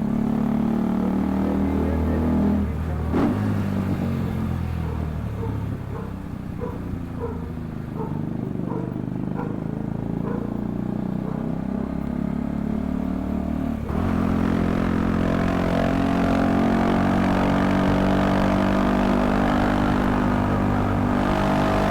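Motor vehicle engine running steadily, changing abruptly to a louder, fuller sound about fourteen seconds in.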